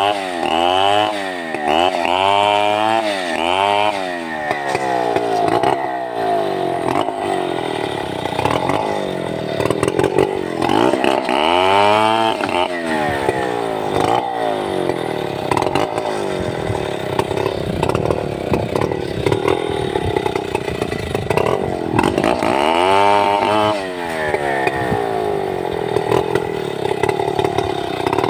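Stihl 070 two-stroke chainsaw running at high revs, its throttle opened and eased several times in quick succession at the start, again about twelve seconds in and near the end, and held at a steady high pitch in between.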